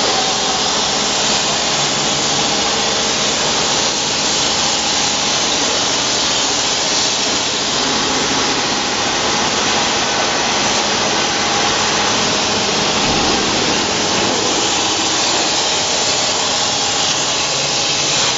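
Rotary glass-bottle beer filling machine running: a loud, steady hissing machine noise with no breaks.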